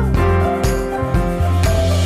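Background music with sustained pitched notes and a steady beat.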